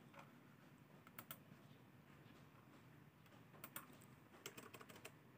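Faint clicks from a computer mouse and keyboard in use: a few single clicks, then a quicker run of clicks between about three and a half and five seconds in, over a low steady hum of room tone.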